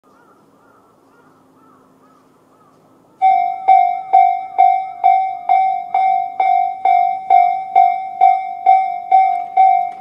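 Electronic Japanese railway level-crossing warning bell (Tobu 'tone C') starting suddenly about three seconds in and striking about twice a second, each ringing strike dying away before the next: the crossing is warning of an approaching train.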